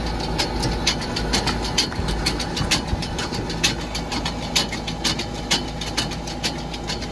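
Tractor engine running steadily while towing a loaded silage feeder trailer across a paddock, with frequent irregular rattling clicks over the engine hum.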